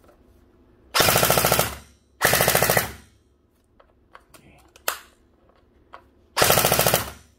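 Electric toy gel blaster, a Lehui SIG MCX replica, firing on full auto with no magazine fitted, its motor and gearbox cycling rapidly in three short bursts of under a second each. Two bursts come about a second in and just after, and a third near the end.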